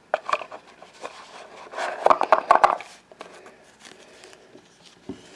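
Small plastic toy figures and the lid of a small box being handled on a tabletop: a string of light clicks and taps with some rubbing, busiest around two seconds in.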